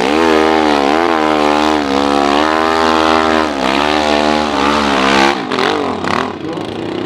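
Hill-climb motorcycle engine held at high revs under full throttle as the bike claws up a steep dirt slope, with the revs dipping briefly a few times. About five seconds in the revs fall away and turn ragged as the bike loses drive near the crest, settling to a lower, steadier note near the end.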